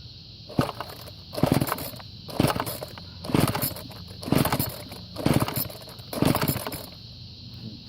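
A McCulloch two-stroke string trimmer being pull-started on choke: seven rope pulls of the recoil starter, about one a second, with the engine not catching between them. The trimmer needs a new carburetor and may have its fuel lines on backwards.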